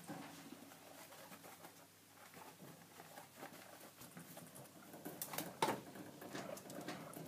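Guinea pig scrabbling and climbing at the wire bars of its cage, trying to get out: scattered clicks and rattles of the metal bars, the loudest a little after halfway, with soft low guinea pig vocal sounds in between.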